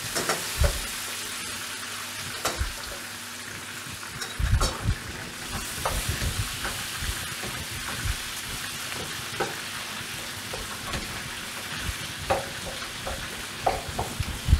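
Diced potatoes and vegetables sizzling in oil in a frying pan while being stirred with a wooden spoon, which knocks against the pan now and then. Smoked pork ribs fry in a second pan beside it.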